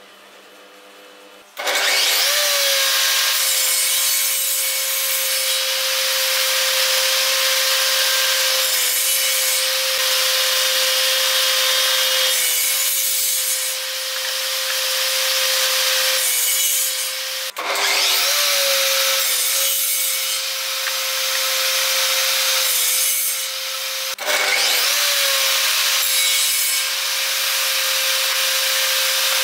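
Table saw starting about one and a half seconds in and running with a steady whine, its blade cutting repeated slots through a wooden workpiece pushed on a crosscut sled to form tenon fingers. The sound breaks off briefly twice, near the middle and later on.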